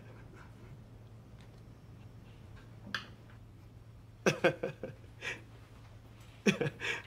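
A man laughing in short bursts, about four seconds in and again near the end, over a low steady hum.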